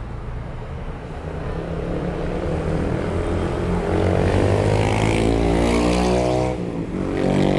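A motor vehicle's engine accelerating close by, its pitch climbing steadily for a few seconds, then dropping sharply near the end before it climbs again.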